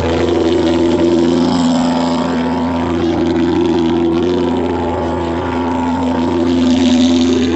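Handheld thermal fogging machine running, its pulse-jet engine making a loud steady drone while it blows out disinfectant fog.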